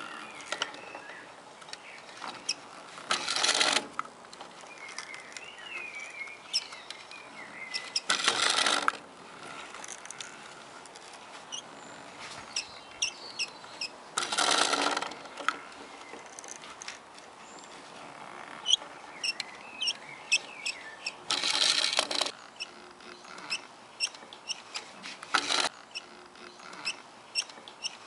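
Wooden automaton mechanism of gears and cams being run: a stream of irregular wooden clicks and ticks, with a short rushing noise of under a second coming back about every six to seven seconds, five times in all.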